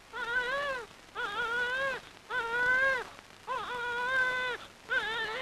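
Newborn baby crying in a run of about five short wails, each under a second long, with short gaps between them.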